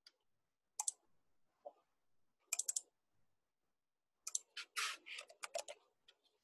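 Computer mouse clicks, one near the start and a double click a couple of seconds in, then a quick run of keyboard keystrokes about four seconds in, typing a short word.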